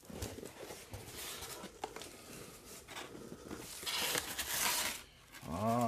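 Cardboard box flaps being folded back and a foam packing sheet handled: scattered rustles and taps, with a louder scraping rustle about four seconds in. A short voice-like whine near the end.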